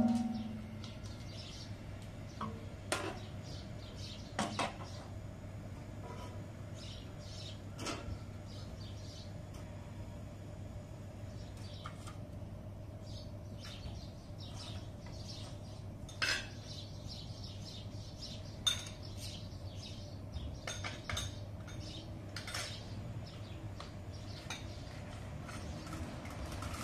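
Metal trays and a metal bowl clinking and knocking as they are handled and set down, in scattered strikes a few seconds apart, over a low steady hum.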